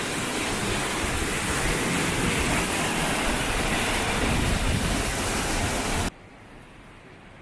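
Loud, steady rushing noise with wind buffeting the microphone in uneven low rumbles, cutting off abruptly about six seconds in.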